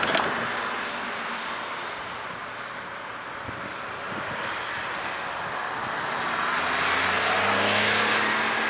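Road traffic: a motor vehicle passing, growing louder over the last few seconds with a low engine hum under the tyre noise.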